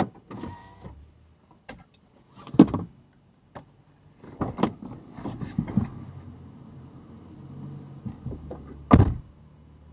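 A driver getting out of a parked car: scattered clicks, knocks and rustling from inside the cabin, then the car door shut with a loud thump about nine seconds in.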